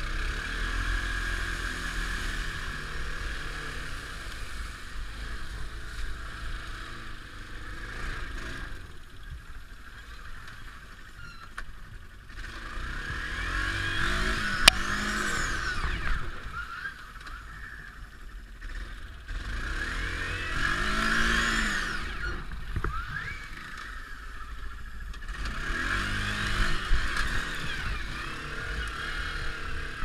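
ATV engine running while being ridden along a trail. The throttle is opened and eased off three times, so the engine note rises and falls: about halfway through, again a few seconds later, and near the end.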